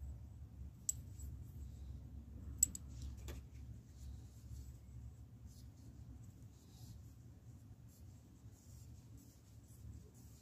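A few sharp small clicks in the first few seconds, the second the loudest, then faint light scratching, over a low steady rumble.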